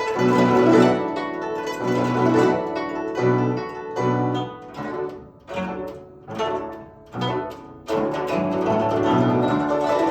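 Solo guzheng (Chinese plucked zither) playing, with dense runs of plucked notes. About halfway through come a few separate, sharply struck notes with brief gaps between them, and then the fast playing resumes.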